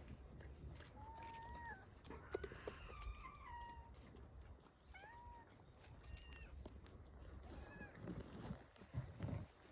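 Faint animal calls: three short, pitched cries, each rising then falling, with a rustle and a few knocks near the end.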